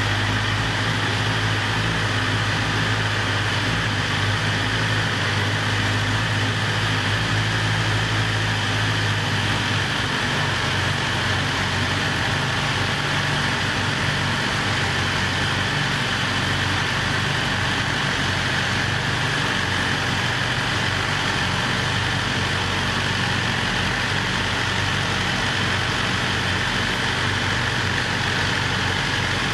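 BMW S 1000 RR's 999 cc inline-four engine idling steadily. Its pitch drops slightly about ten seconds in.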